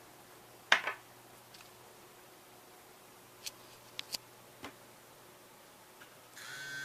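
A few sharp clicks and ticks, the loudest about a second in and a quick group of smaller ones a little past halfway; near the end a mobile phone's ringtone begins.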